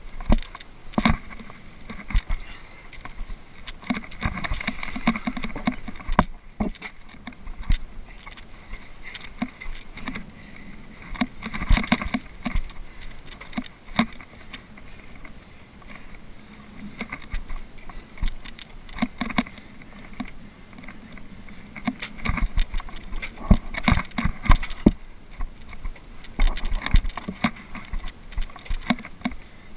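Irregular knocks, clicks and scrapes of a climber's gloved hands, gear and body-worn camera against granite and a fixed iron chain, over steady rustling handling noise.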